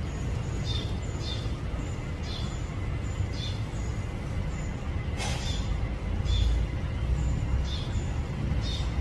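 A small bird chirping over and over, short high chirps about twice a second, over a low steady rumble; a sharp click about five seconds in.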